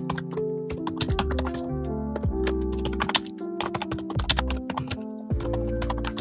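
Typing on a mechanical keyboard: a quick, irregular run of clicky keystrokes. Background music with held notes and a bass line plays underneath.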